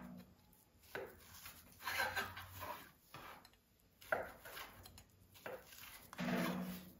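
A chef's knife slicing through hot dogs and tapping down on a bamboo cutting board, a few separate cuts with sharp knocks. A brief low-pitched sound comes near the end.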